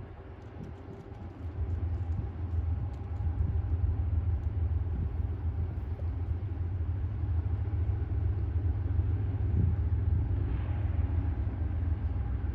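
Low, steady vehicle rumble that builds about a second and a half in and then holds.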